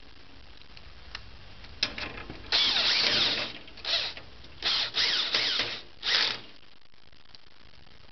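Cordless drill/driver driving screws, with a run of about a second followed by four short bursts of the motor, stopping and starting as each screw is seated.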